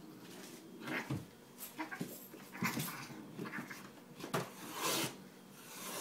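A cat and a man's hand play-fighting on the floor: irregular scuffling, two sharp knocks, and short animal vocal sounds.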